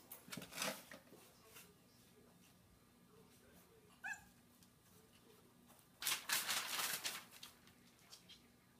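Puppies playing: scuffling noises near the start and a louder burst of scuffling about six seconds in, with one short, high puppy yip about four seconds in.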